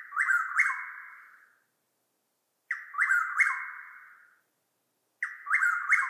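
Chuck-will's-widow singing its song three times, each a quick three-note phrase, about two and a half seconds apart.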